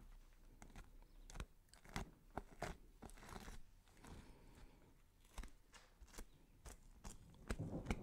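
Faint kitchen cooking sound effect: irregular clicks, knocks and short crunches of utensils and food being worked.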